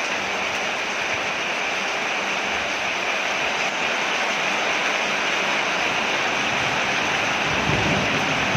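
Steady rain falling on a porch, an even hiss, with a low rumble coming up near the end.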